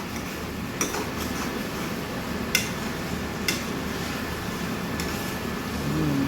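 Kitchen utensils and dishes clinking: a handful of sharp, separate clinks a second or so apart over a steady low background hum.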